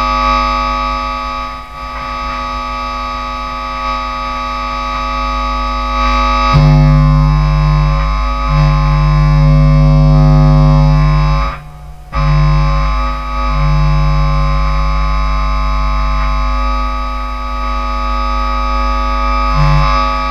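Bass guitar played through a distortion pedal and a small guitar amp: a harsh, steady wall of distorted noise with many held tones over a heavy low end. A louder low note comes in about six seconds in and keeps dropping in and out, and the sound cuts out briefly near the middle.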